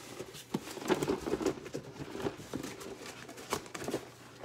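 Cardboard shipping box being handled and tipped to work out a tight-fitting item: scraping and rustling cardboard with several sharp knocks.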